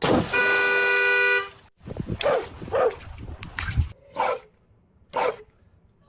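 A horn sounds one steady blast of about a second, then a dog barks several times at uneven intervals.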